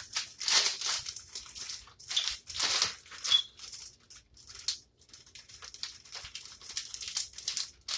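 A bag rustling and crinkling in irregular bursts as chicken in seasoned flour is handled in it.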